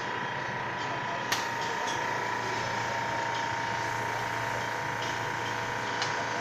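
Steady mechanical hum with a faint whine, and a single light click about a second in.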